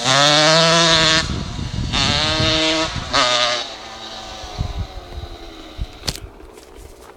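Husqvarna CR 125's 125 cc two-stroke single, on a DOMA Racing exhaust, accelerating hard through the gears. There are three rising pulls with brief drops at the shifts. After about three and a half seconds it fades away into the distance.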